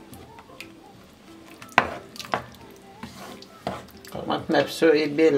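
Wooden spatula stirring a thick tomato and pepper sauce in a nonstick pot, scraping through the sauce with a few sharp knocks against the pot's side, the strongest about two seconds in.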